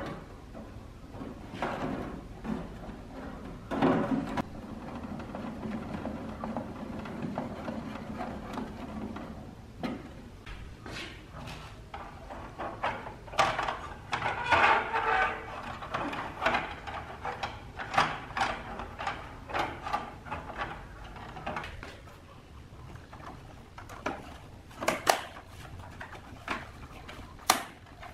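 Hard plastic parts of a tower fan's housing being handled and pressed together on a workbench: irregular clicks and knocks with scraping and rubbing of plastic, busiest around the middle.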